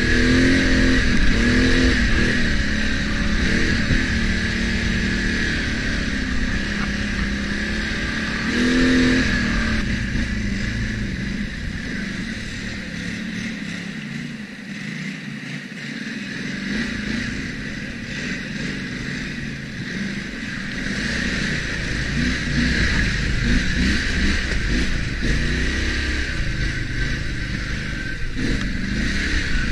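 ATV engine running on a trail, revving up and down with the throttle, with a steady high whine over it for about the first ten seconds. The engine eases off about halfway through, then picks up again and runs on steadily.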